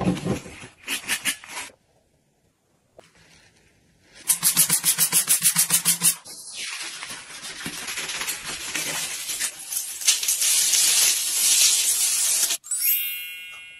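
A melamine sponge scrubbing a chrome shower mixer coated in foaming limescale cleaner. It rubs in quick strokes at first and then in a long dense stretch, after a short pause near the start.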